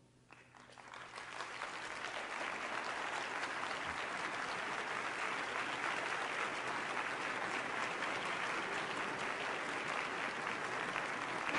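Audience applauding, the clapping swelling up over the first second or two and then holding steady.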